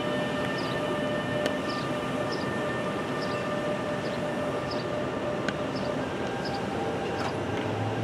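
NJ Transit ALP-46A electric locomotive hauling a passenger train at low speed: a steady electrical whine of several held tones over a rumbling rush of noise. A low hum comes in near the end.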